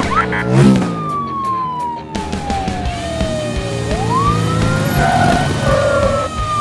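Police siren wailing: a single tone falls slowly for about four seconds, sweeps back up and starts falling again, over background music with a beat.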